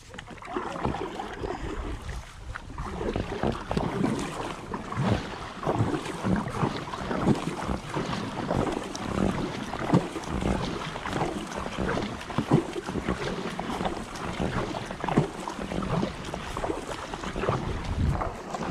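Paddle blades dipping and splashing in calm canal water beside an inflatable kayak, in a dense, irregular patter, with wind on the microphone.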